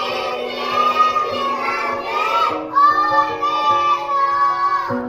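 Children singing together in long held notes, with an instrument holding steady notes underneath that change pitch in steps.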